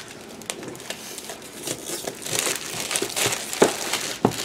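Plastic shrink-wrap on a board game box crinkling and crackling in irregular bursts as it is torn and peeled off by hand, with a few sharper clicks.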